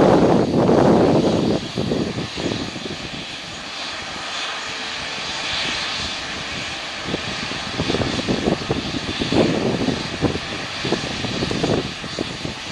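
Airbus A350-1000's Rolls-Royce Trent XWB turbofans heard as the airliner rolls along the runway: a steady jet rumble with a high whine. Wind buffets the microphone, loudest in the first second and a half and in gusts afterwards.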